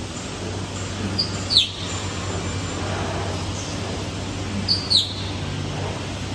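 Woodmaster Pro-T4E five-axis CNC router running with a steady low hum, working a curved plywood chair back. Two short high chirps falling in pitch cut in about a second and a half in and again about five seconds in.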